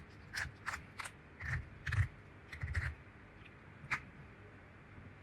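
Handling noise: a run of light clicks and soft knocks over about three seconds, then one sharper click about four seconds in.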